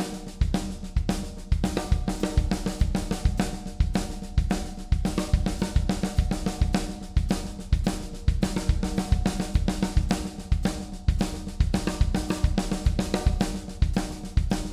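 Drum kit playing a continuous sixteenth-note fill of sticking patterns, right-left-left-kick repeated three times then right-left-kick four times, cycling in 3/4: a steady stream of snare, bass drum and cymbal strokes.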